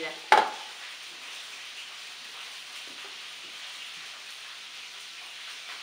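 A single sharp knock just after the start, then a steady faint hiss of room tone.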